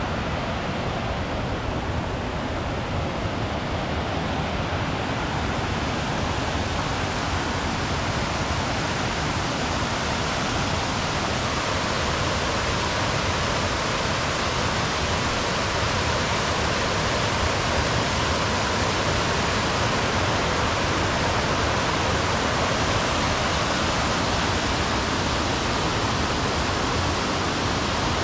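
Waterfall: a steady, even rush of falling water that grows slightly louder over the stretch.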